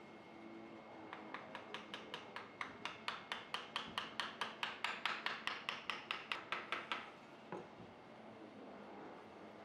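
A fast, even run of light clicks or taps, about five a second for some six seconds, louder in the middle, then one more click shortly after.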